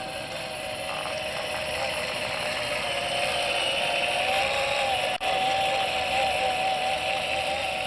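A 12-volt motor overvolted to 32 volts spinning a fire tornado rig's wire-mesh cage, a steady whine whose pitch wavers slightly, over a steady rushing noise from the burning flame column. The sound drops out for an instant about five seconds in.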